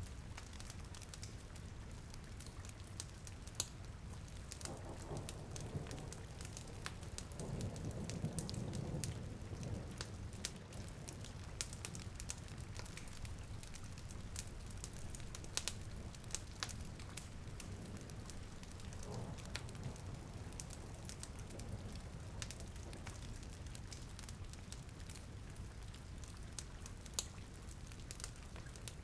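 Ambient rain and fireplace sounds: a steady rain hiss under frequent sharp crackles and pops from a wood fire.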